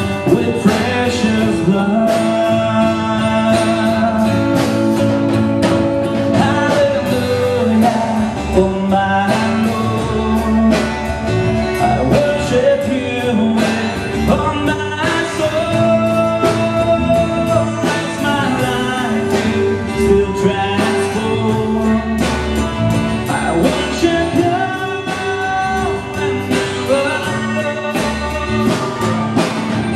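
Live worship band playing: drum kit, bass guitar and electric guitar under a singer's melody.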